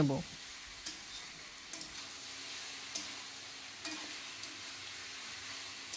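Mutton with ginger-garlic paste sizzling in oil in a pan as it is sautéed (kosha) over medium heat, stirred, with a few light scrapes of the stirring utensil against the pan.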